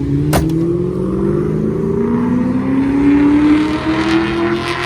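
A car engine accelerating, its pitch climbing steadily, with a single sharp click about a third of a second in.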